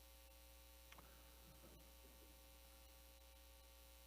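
Near silence: a faint, steady electrical hum, with a few faint ticks and rustles about one to two seconds in.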